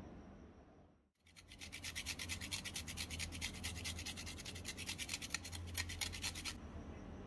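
Carrot grated on a miniature metal box grater: a rapid, even run of rasping strokes that starts about a second in and stops shortly before the end.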